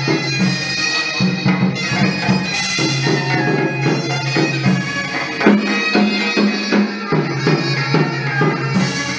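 Hát văn (chầu văn) ritual music for a hầu đồng spirit-mediumship ceremony. A sustained melody runs over a steady low drone, with percussion strokes about three times a second.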